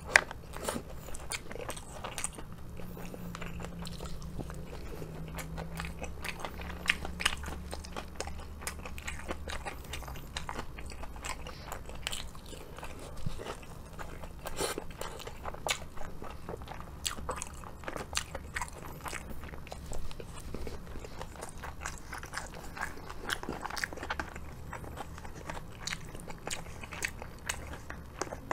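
Close-up chewing of crispy karaage (Japanese fried chicken): crunching bites and repeated chewing with irregular crackles, over a low steady hum.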